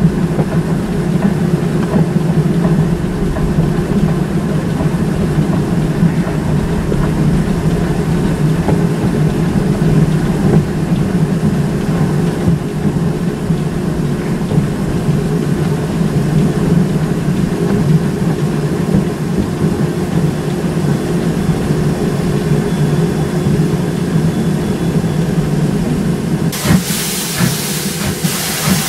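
Steam locomotive running, heard close up from a microphone mounted at its front: a steady low rumble of the engine and its wheels on the rails. Near the end a loud hiss of escaping steam starts.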